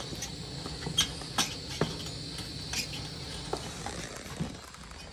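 A wooden spatula stirring and scraping a thick dough-like paste in a metal pan on a gas ring, giving a few sharp clicks and knocks, loudest in the first two seconds, over the steady hiss of the gas burner.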